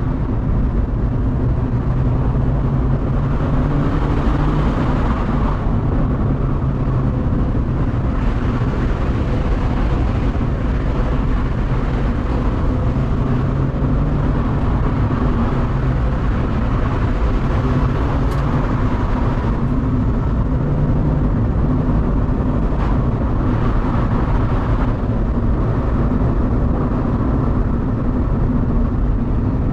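Mazda MX-5 NB's four-cylinder engine running as the car drives, with steady tyre and road noise underneath.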